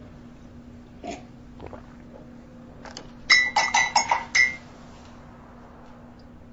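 A spoon clinking quickly against the inside of a mug: about six short ringing taps in just over a second, after a couple of faint knocks, over a low steady hum.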